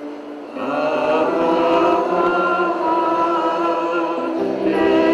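Slow worship singing with long held notes. A new phrase comes in about half a second in, after a short lull.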